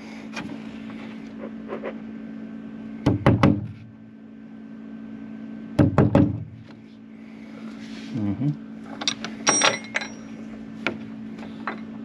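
Knocks and taps on a wooden door in short groups of two or three, as a pilot hole for a barn door latch is started in the wood by hand, with a few light metallic clinks about nine to ten seconds in. A steady low hum runs underneath.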